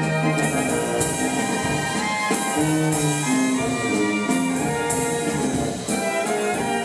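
Brass band playing a waltz: trumpets, trombones, tenor horn and tuba in sustained, overlapping melodic lines, with drums beneath.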